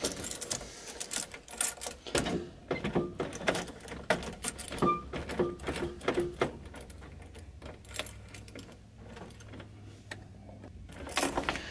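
Keys on a carabiner keyring jangling and clicking at the ignition switch of a 1986 Suzuki Samurai as the key is worked again and again, with no starter or engine sound at all: the owner suspects the battery is not fully hooked up.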